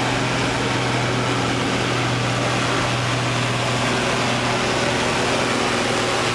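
Case International farm tractor's diesel engine running at a steady, even speed as the tractor drives slowly past, with no revving.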